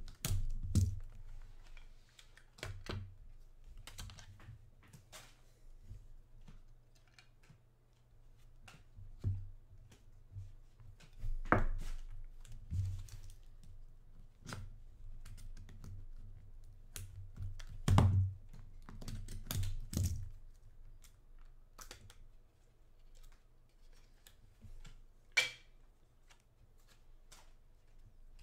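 Irregular clicks, taps and scrapes of a small metal blade tool prying at the seams of a clear plastic card case, with a few louder knocks, over a low steady hum.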